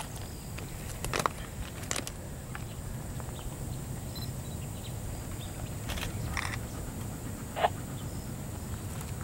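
Distant low rumble of the 2-8-0 steam locomotive Southern Railway #630 working toward the camera, unseen behind the trees, with a few sharp clicks scattered through it.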